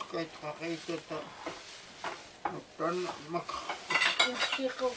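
A plastic carrier bag crinkling and rustling as hands rummage inside it, loudest about four seconds in, with people talking over it.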